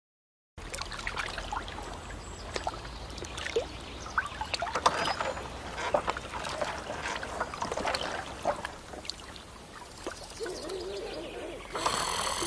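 Water lapping and dripping around a small rowboat on still water, many small drips and light splashes with the odd soft knock, starting about half a second in. A steadier hiss comes in near the end.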